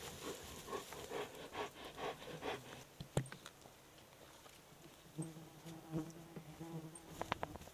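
A flying insect buzzing steadily for about two seconds, passing close, with a quick run of short rhythmic scuffles before it, a sharp snap about three seconds in, and a few clicks near the end as black bear cubs move through the undergrowth.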